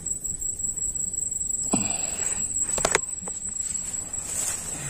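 Insects trilling steadily at a high pitch, over grass rustling and a few sharp knocks as someone pushes through tall grass and reeds on foot.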